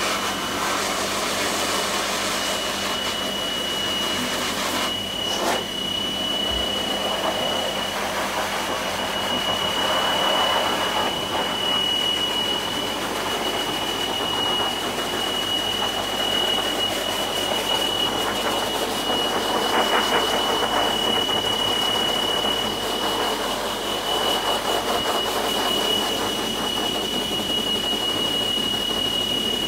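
High-velocity pet force dryer running steadily: a loud rush of air with a steady high-pitched whine through it, the air noise swelling now and then as the nozzle moves.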